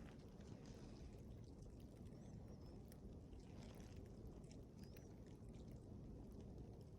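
Faint steady wind rumble with scattered soft ticks, and a few brief high bird chirps about two seconds in and again near five seconds.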